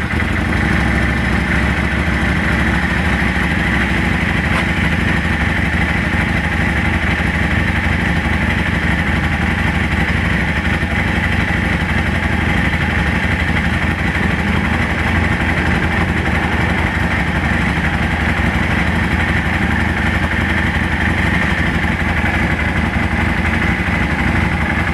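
Yamaha V Star 650 Classic's air-cooled V-twin idling steadily on choke, just after a cold start.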